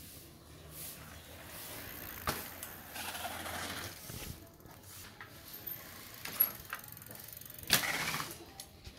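Bicycle freewheel hub ticking as the rider coasts, with tyre noise on pavement and a few sharp knocks; the loudest knocks come about six and a half and seven and a half seconds in.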